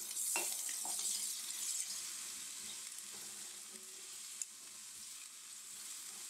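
Chopped onion sizzling in hot oil with garlic and ginger in a stainless steel wok while being stirred with a silicone spatula. The sizzle is loudest just after the onion goes in and eases off over the next few seconds, with a few light clicks of the spatula against the pan.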